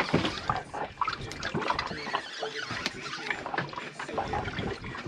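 Fishing reel being cranked against a hooked fish, with many irregular clicks and small squeaks, over water sloshing against a boat hull.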